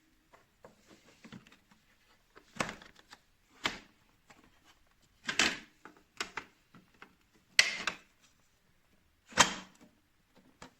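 A series of short knocks and clunks, about half a dozen loud ones spread irregularly with quieter clicks between them.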